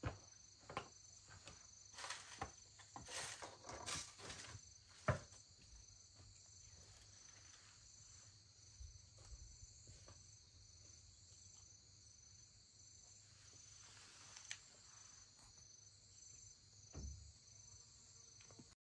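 Faint insects chirping steadily in a high, evenly pulsing drone, with scattered light knocks and clicks in the first few seconds, the sharpest about five seconds in.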